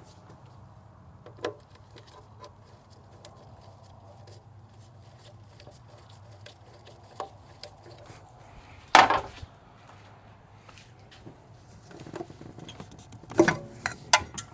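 Scattered clicks and knocks of hand work on a diesel engine's intake plumbing, as hose clamps are undone and pipes worked loose. A loud knock comes about nine seconds in and a quick cluster of clatters near the end.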